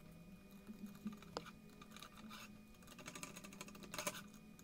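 Faint clicking and tapping of small parts being handled: aluminium standoffs and screws being fitted to a carbon-fibre quadcopter frame, the clicks coming in loose clusters and busiest near the end.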